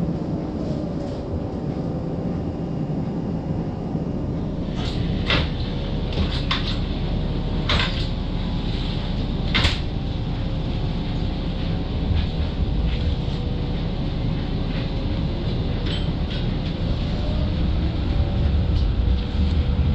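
Toronto streetcar running along the track: a steady rumble of wheels on rail with a low motor hum. A run of sharp clacks comes from about five to ten seconds in.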